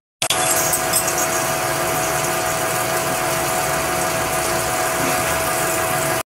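Metal lathe turning a ring-shaped workpiece under coolant spray: a steady machining noise with a constant whine. It starts suddenly just after the beginning and cuts off just before the end.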